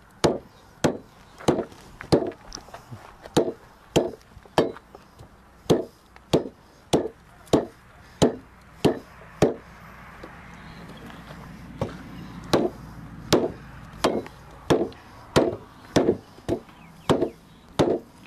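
Machete chopping into a thick, spongy sabah branch laid on a bamboo slat table: steady dull chops about one and a half a second, with a short pause about ten seconds in before the chopping resumes.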